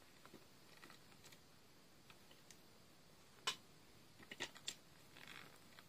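Mostly near silence, broken by a sharp click about three and a half seconds in and a few lighter clicks and a faint rustle near the end: batteries being fitted into a Furby Boom's battery compartment.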